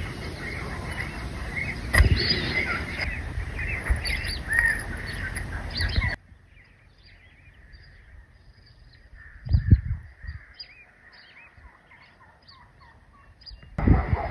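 Wild birds calling with many short chirps, over a low rumbling noise for the first half. The sound then drops abruptly to quieter chirping, broken by a single low thump about two-thirds of the way through.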